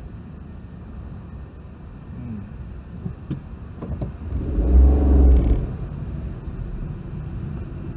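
Car engine heard from inside the cabin, running with a low rumble, then revving up loudly for about a second midway as the car pulls away from a standstill on a steep uphill ramp (a hill start). A couple of light clicks come just before the revving.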